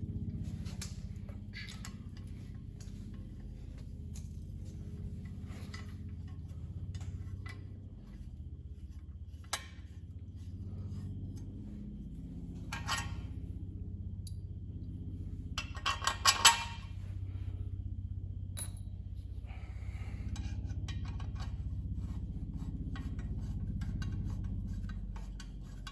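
Metal parts and tools clinking and clattering as they are handled, with a loud cluster of clinks about two-thirds of the way through, over a steady low hum.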